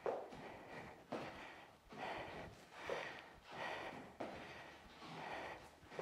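A woman breathing hard from exertion, with sharp, audible breaths about once a second.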